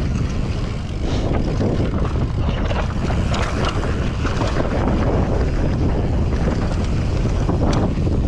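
Mountain bike descending a rough enduro trail: steady wind buffeting on the microphone over tyre rumble, with frequent short rattles and knocks from the bike over the ground.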